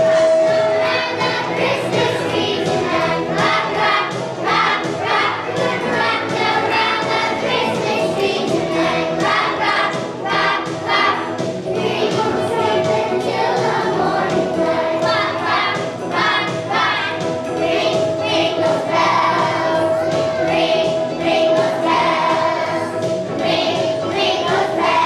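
A choir of young children singing a holiday song together over musical accompaniment.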